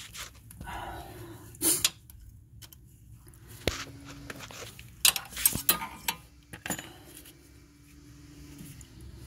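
Metal hand tools clinking against bolts and metal parts under a car: a scatter of sharp clinks, with a bunch of them about five seconds in.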